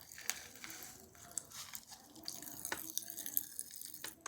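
Faint, scattered little clicks and crackles of popping candy fizzing in the mouth.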